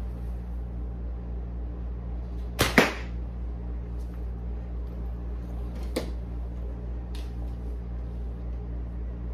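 Recurve bow shot: the string is released with a sharp snap about two and a half seconds in, followed by a lighter click about six seconds in, over a steady low hum.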